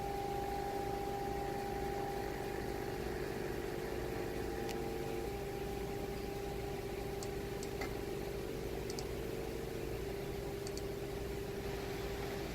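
Steady electronic whine from a new high-end Dell computer: a few held mid-pitched tones over a low hum, stepping to a different pitch about five seconds in and again about ten seconds in. The whine is tied to Internet Explorer running, as it stops when the browser is closed. A few faint clicks sound over it.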